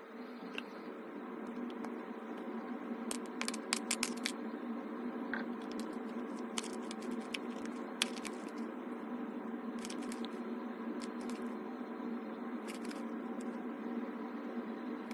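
Slime with Orbeez mixed in being squished and pressed by hand: irregular crackling and sticky popping clicks, with a steady low hum underneath.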